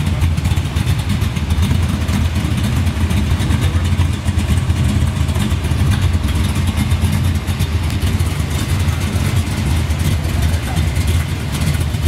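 Engine of a custom Chevrolet Chevelle running steadily at low speed as the car rolls slowly, a deep, even engine note.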